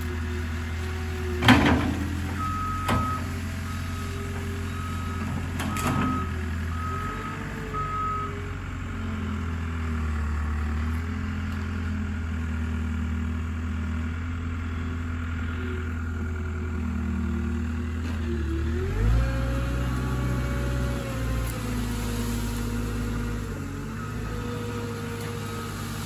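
Diesel engine of a loader working steadily, its back-up alarm beeping repeatedly from about two seconds in to about eight seconds and again near the end, with the engine revving up about nineteen seconds in. A few sharp cracks sound in the first six seconds, the loudest about a second and a half in.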